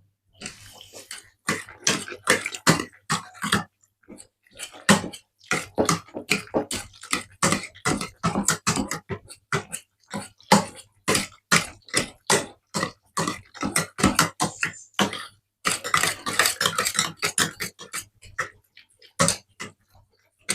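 A hand masher working a wet, sloppy filling of cooked vegetables, gravy and minced ham in a saucepan. It makes quick, irregular mashing strokes, several a second, with only brief pauses.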